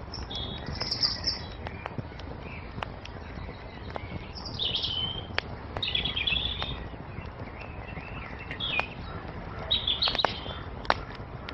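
Songbirds chirping and singing in short, high phrases over a wood fire crackling, with scattered sharp pops and a steady low rumble from the flames.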